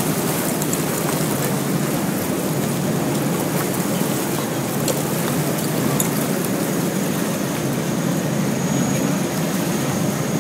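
A boat pushing through broken river ice: a steady rumble of the engine and ice grinding along the hull, with a few sharp cracks of ice near the middle.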